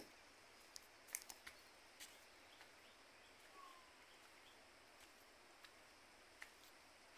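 Near silence: faint outdoor background hiss by a still river, broken by a few sharp clicks, mostly about a second in, and one brief faint falling whistle a little past halfway.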